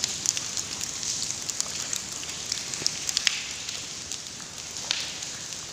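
Quiet cave ambience: a steady hiss with many scattered faint clicks and ticks at irregular intervals.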